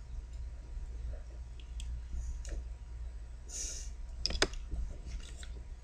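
Plastic Rubik's cube pieces clicking as edge pieces are fitted and the layers twisted. Scattered light clicks, a short scrape about three and a half seconds in, and two sharp clicks just after, the loudest.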